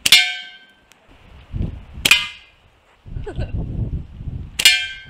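Three ringing metallic clangs about two seconds apart: catapult shots hitting a metal target.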